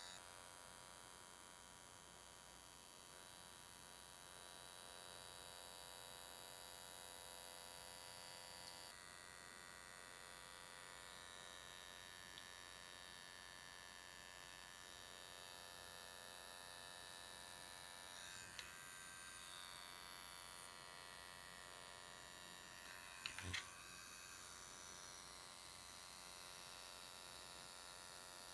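Faint steady buzz and high whine of an ultrasonic skin scrubber running as its metal blade is drawn over wet skin. A couple of soft clicks, then one brief louder tap about three-quarters of the way through.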